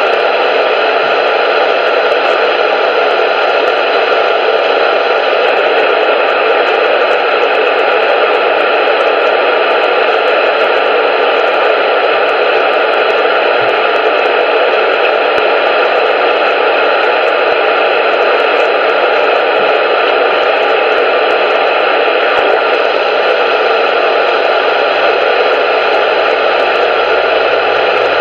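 Loud, steady radio static: an even hiss with no voice in it, cut thin at the top and bottom as through a radio receiver.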